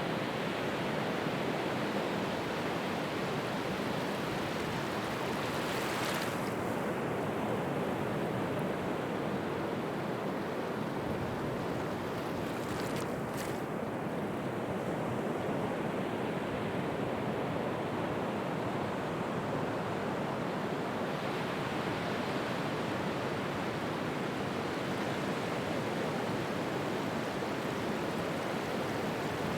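North Sea waves washing and breaking in a steady rush of surf, with two brief, sharper hisses about six and thirteen seconds in.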